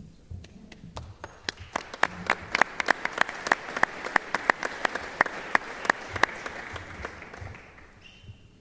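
Audience applauding. It builds up about a second in, with a few loud, close claps standing out among the rest, and dies away about a second before the end.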